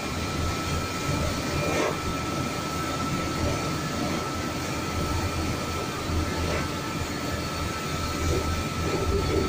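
Automatic train washing plant at work: motor-driven rotating brushes scrub the side of a passenger coach as it rolls slowly through, with water spraying and a low rumble. A steady high tone runs throughout.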